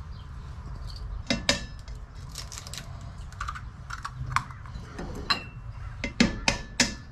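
Eggs being tapped and cracked against a stainless steel mixing bowl: a series of sharp taps and knocks, several leaving a short metallic ring, the loudest cluster near the end.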